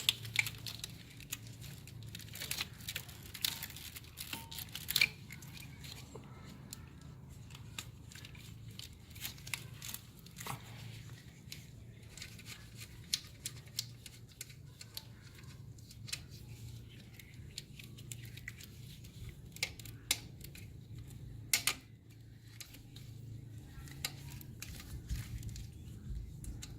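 Scattered light clicks and taps of hands and small parts being handled in a car's engine bay, with a few sharper clicks, such as near the start, about 10 s in, and about 20 and 22 s in, over a steady low hum.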